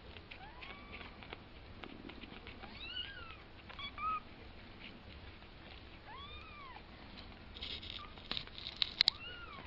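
Two-week-old kittens mewing: about five thin, high calls, each rising and then falling in pitch, with soft rustling as they crawl. A few sharp clicks near the end are the loudest sounds.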